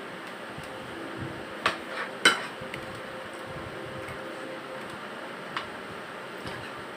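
Tableware clinking on a glass-topped table: two sharp clinks close together about two seconds in, the second louder, and a fainter one near the end, over a steady background hum.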